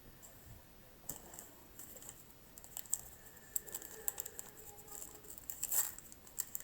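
1985 Topps baseball cards being handled and flipped through, a run of irregular light clicks and flicks as the cards slide and snap against each other.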